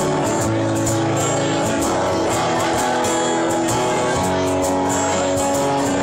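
Live band playing: two strummed acoustic guitars over a Tama drum kit keeping a steady beat with cymbal hits.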